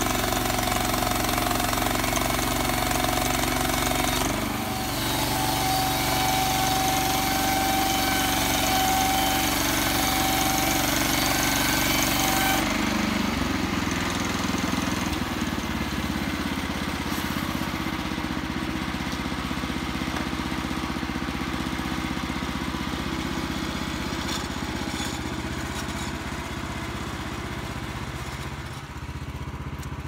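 Norwood LumberMate LM29 portable bandsaw mill running on its gasoline engine, the band blade cutting through a log with a steady whine. About twelve seconds in, the high cutting noise stops and the engine runs on, lower and steady, out of the cut.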